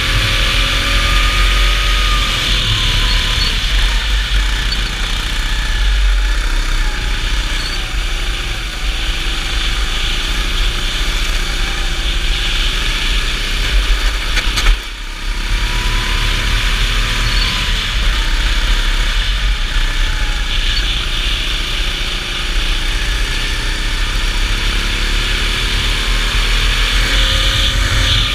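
Go-kart engine heard onboard while lapping a wet track, its revs rising and falling through the corners over a steady rush of noise. About halfway through there is one sharp knock, and the sound dips for a moment before the engine picks up again.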